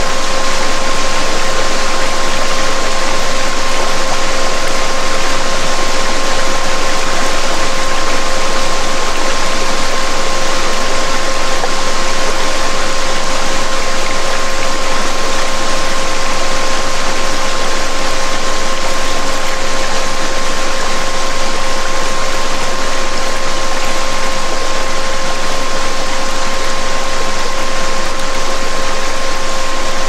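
Steady rushing of a waterfall recording with a pure, unchanging tone just above 500 Hz and a second tone an octave higher, played as a "DNA repair" healing frequency.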